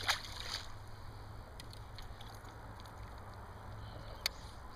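A small splash as a released crappie drops back into the water, then a steady low hum with a few faint clicks and one sharp click about four seconds in.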